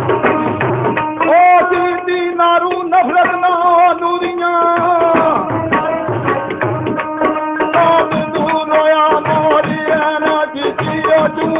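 Punjabi Sufi folk music: a hand drum keeps a steady beat under a melody that holds long, wavering notes.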